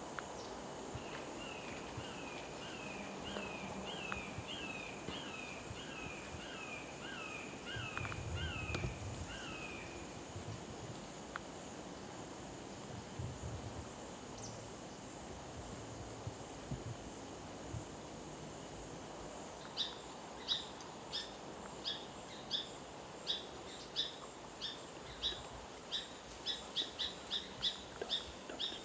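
Wild birds and insects in woodland: a bird repeats a short slurred note about twice a second for the first ten seconds over a faint high insect trill, and from about two-thirds of the way through sharp chirps come in, faster and faster toward the end.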